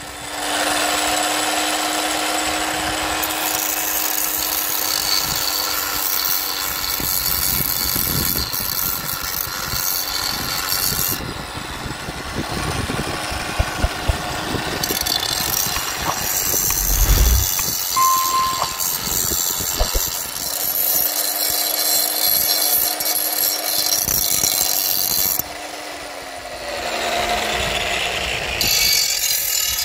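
Electric power tool running under load: a steady motor whine under dense rasping cutting or drilling noise. About 25 seconds in the load comes off and the motor winds down.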